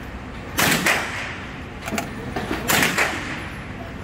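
Gunshots in an indoor shooting range: two loud shots about two seconds apart, each with a short echoing tail, and a fainter crack between them.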